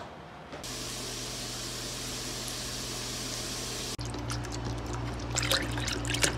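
Liquid pouring: a steady rushing hiss, then from about four seconds in a low steady hum with irregular splashing that grows toward the end as the liquid spills over.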